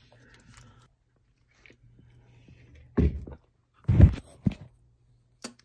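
Eating and handling noises as a hand digs lemon pie out of a foil tin: soft rustling at first, then two loud dull bumps about three and four seconds in.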